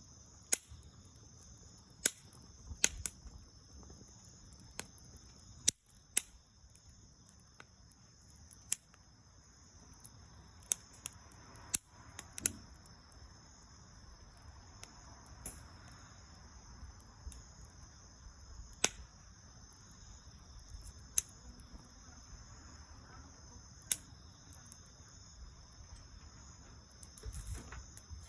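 Small bonfire of dried soyogo (Ilex pedunculosa) leaves and branches crackling, with sharp irregular pops every second or two over a low rumble of burning. A steady high-pitched trill runs underneath.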